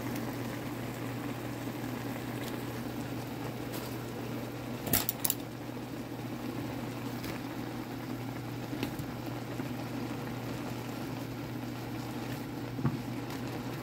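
Water boiling around a block of instant ramen noodles in a skillet: a steady bubbling with a low hum beneath it. Two sharp clicks come about five seconds in, and there is a soft knock near the end as wooden chopsticks stir the noodles.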